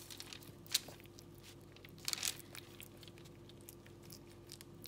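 Chef's knife slicing through a raw chicken breast on a paper towel: faint, scattered crisp cutting sounds, with a couple of louder strokes, one about a second in and one near the middle.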